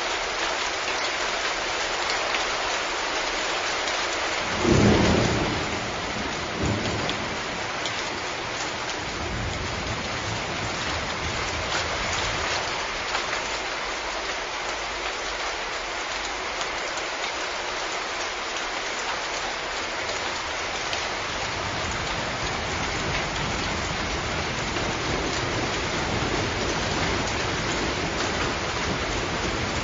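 Steady rainfall with a sudden clap of thunder about four to five seconds in, a smaller crack a couple of seconds later, and low rolling rumbles afterwards.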